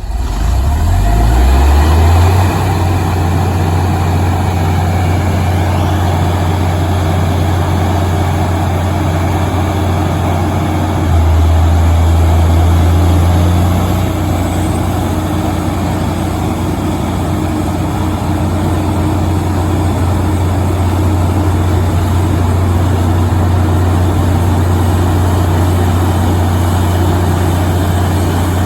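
350 kW Cummins/Onan diesel generator set running just after start-up: a steady, loud low engine drone that settles within the first couple of seconds, with a slightly louder stretch about eleven to fourteen seconds in.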